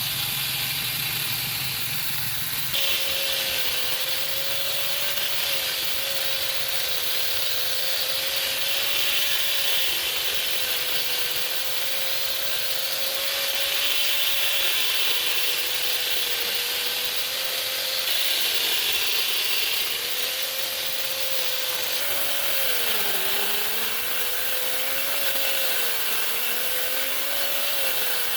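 Electric power tool working wood: a steady motor whine with a rasping cutting noise. The motor's pitch sags briefly about 23 seconds in, as if under load, and the sound shifts abruptly a few times.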